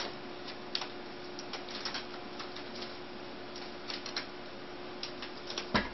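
Kitten clambering on a wicker basket, its claws and weight making scattered light crackling clicks on the woven rim, with one louder thump near the end.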